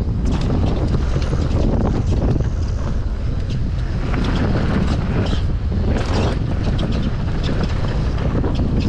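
Wind buffeting the microphone of a mountain biker's action camera, over the rumble, rattle and knocks of a downhill mountain bike riding fast over a rough trail.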